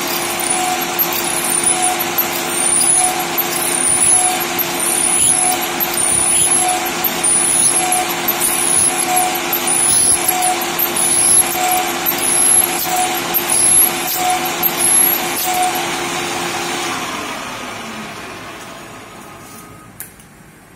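Small CNC turret lathe drilling a spinning bar: steady machine and cutting noise under a steady spindle hum, with a high chirp repeating about once a second. Near the end the chirps stop, the hum drops in pitch and the noise fades as the spindle winds down, with a single click just before the end.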